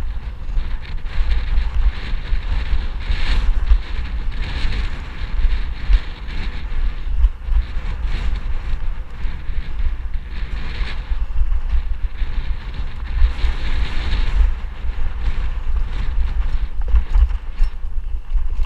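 Mountain bike riding over dirt and slickrock trail, with wind buffeting the camera microphone as a constant low rumble. Tyre and bike rattle over the rock swell and fade in surges.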